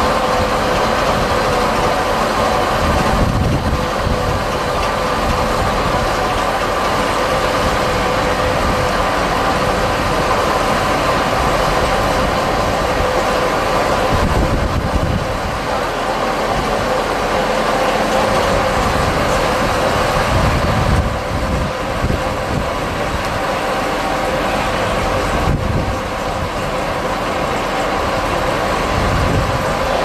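Tractor driving a forage loader wagon's unloading mechanism as chopped grass silage is discharged onto a heap. The engine and the wagon's beaters and floor chain make a steady mechanical drone with a constant whine.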